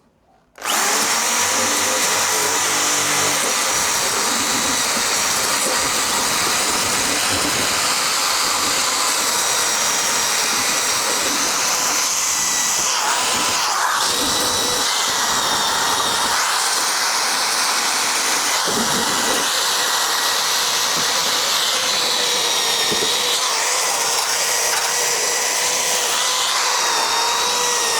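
A handheld rotary power tool starts up about a second in and runs steadily against car body steel, its motor whine wavering slightly under load as it cleans rust off the metal behind a removed hinge panel.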